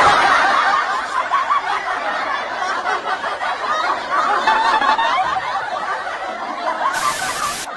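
Many voices laughing and snickering together, overlapping. A short burst of hiss comes in near the end.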